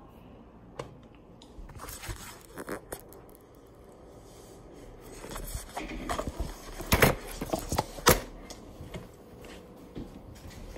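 Handling noise from a phone camera being picked up and moved on a tabletop: light scrapes and clicks, then a run of sharp knocks about seven and eight seconds in as it is set back down.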